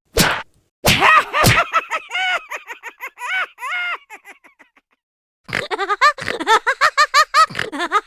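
A few sharp slap sound effects, then a voice laughing in short "ha-ha" pulses that trail off. A second, faster run of laughter starts about two-thirds of the way in.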